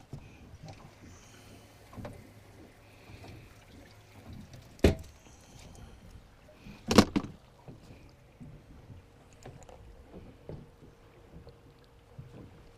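Knocks and thumps on a fishing boat, with two loud sharp ones about five and seven seconds in and smaller clatters between.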